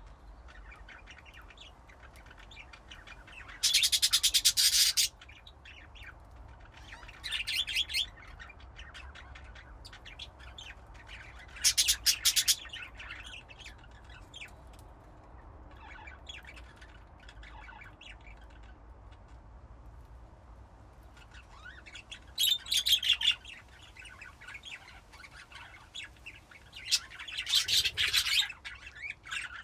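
Several budgerigars chirping and chattering, a low warble throughout broken by loud, rapid bursts of chatter five times.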